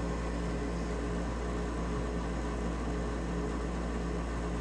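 Steady mechanical hum with a hiss, the constant room noise of a running appliance, holding several unchanging tones without a break.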